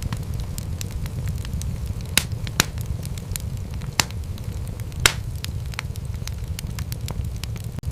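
Wood fire crackling in a fireplace: a steady low rumble of burning with frequent sharp pops, a few louder ones around two, four and five seconds in.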